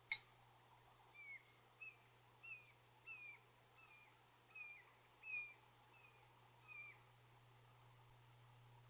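A sharp click, then an animal calling faintly: about nine short, high calls in an even series, each dipping in pitch at its end.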